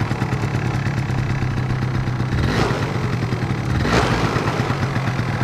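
Yamaha Mint scooter's small two-stroke engine idling on choke, blipped twice, about two and a half and four seconds in, with the revs falling straight back to a steady idle each time. The quick drop is the sign of a correct mixture. Without the choke this engine runs lean, and its revs hang.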